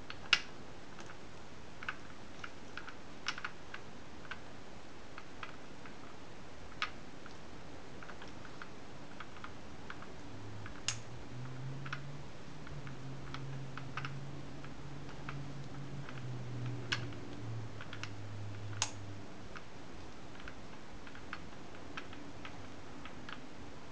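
Gearbox of a 1981 Yamaha SR250, open and turned by hand: scattered metallic clicks as the gears are shifted and the shaft is spun, with a low whir for several seconds midway.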